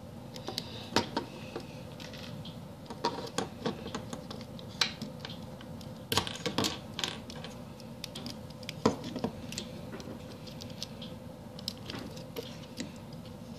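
Plastic Lego bricks and Technic parts clicking and knocking together as they are handled and pressed onto a model, in scattered irregular clicks.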